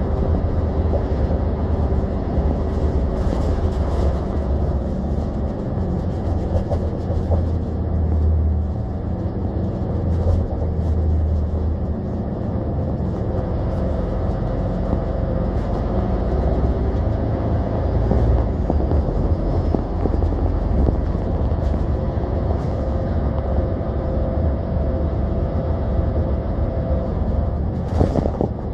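City bus driving along, heard from inside the passenger cabin: a steady low engine and road rumble with a faint drone, and a few brief rattles, one near the end.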